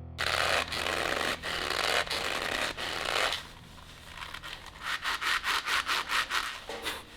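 Scratchy rubbing on a surface: a continuous scrape lasting about three seconds, then quick back-and-forth strokes at about four a second.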